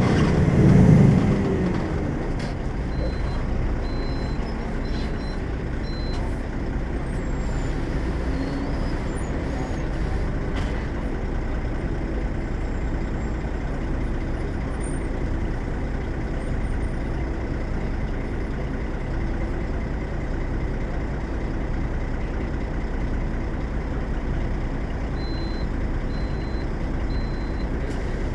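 Volvo B12M bus's 340 hp diesel engine running at a steady drone, louder in the first second or two. Short high beeps sound in a quick row twice, once early and again near the end.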